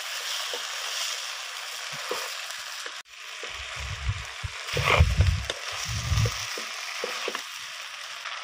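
Pieces of fried fish sizzling in hot oil and masala in an iron kadai, stirred with a steel ladle, with light knocks of the ladle on the pan. A few heavy low thumps midway.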